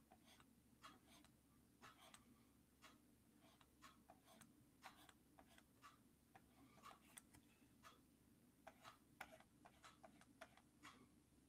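Near silence with faint, irregular clicks and taps, about one or two a second, from digital inking at a drawing tablet and keyboard.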